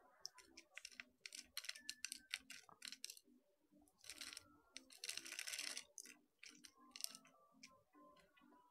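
Faint crisp clicking and crackling of a bar of soap, scored into small cubes, being cut with a utility-knife blade and the cubes broken off by hand, with a longer crumbling rustle about five seconds in.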